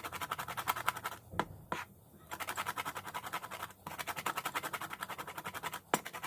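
Fast, even knife chopping on a cutting board, about ten strokes a second, with a few short pauses.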